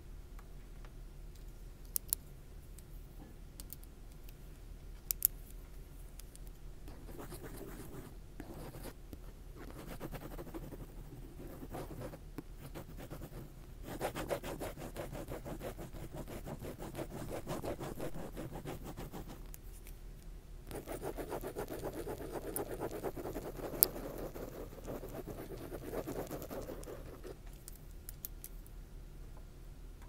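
Close, dense scratching and rubbing at the microphone in long stretches of rapid strokes. There are sharp double clicks about two and five seconds in and a single louder click about two-thirds of the way through.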